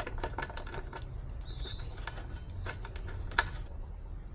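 Quick metallic clicks of a socket wrench turning out a 12 mm bolt on a motorcycle's rear rack, thinning out after about a second. A single sharp metal clink comes about three and a half seconds in, and a faint bird chirp near the middle.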